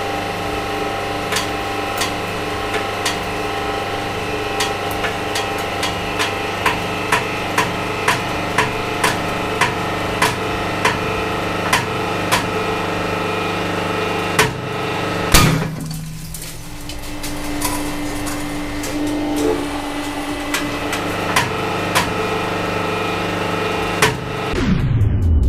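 Hydraulic press running under load, a steady hum from its pump with sharp ticks about twice a second as it squeezes two 40 mm glass balls. One much louder crack about two-thirds of the way through.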